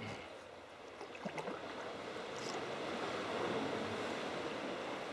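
Sea water washing and splashing around a moving sea kayak: a steady rushing that grows a little louder over the first few seconds.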